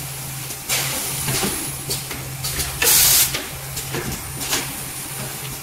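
Napkin packing and sealing machine running with a steady low hum, broken by several short hisses of compressed air from its pneumatic cylinders, the loudest about three seconds in.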